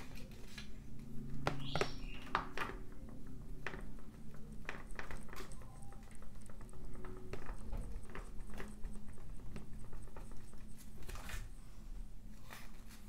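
A paper page of a hardcover comic book being flipped back and forth by hand for a Flip-O-Rama, with repeated rustles, soft flaps and hands brushing the paper.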